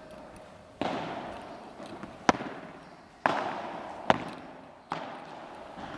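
Padel rally: five sharp knocks of the ball against padel rackets and court, about one a second, each ringing out with echo in a large indoor hall.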